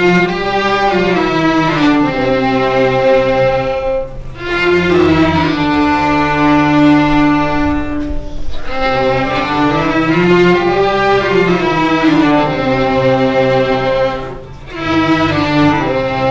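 Violin playing a slow melody with sliding notes over a string section, in long phrases with brief breaks about every four to six seconds.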